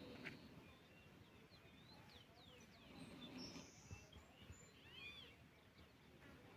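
Faint wild birds calling: many short, high chirps and slurred whistles scattered throughout.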